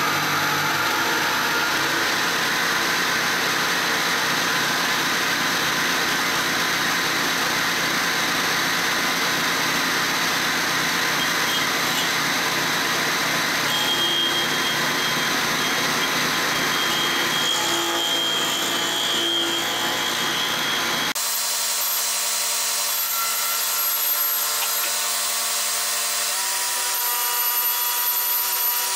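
Milling machine facing off aluminum weld beads with a spinning milling cutter: a loud, steady cutting noise as the cutter shears chips from the weld. About three-quarters of the way through the sound changes abruptly, losing its low rumble and leaving a few steady tones.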